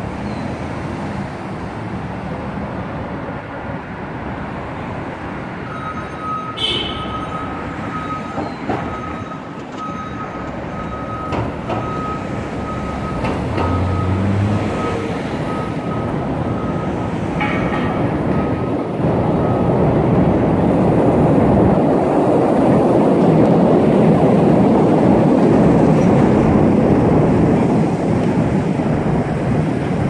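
Chicago 'L' elevated train passing overhead over steady street traffic noise, growing louder in the second half and loudest near the end.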